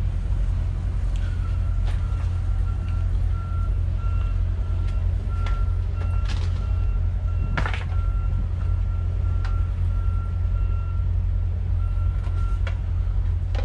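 Detroit Diesel engines of a Hatteras motor yacht idling with a steady low rumble. Over it an electronic beeper sounds on and off at one pitch in pulses of uneven length, with a few clicks and a knock about halfway through.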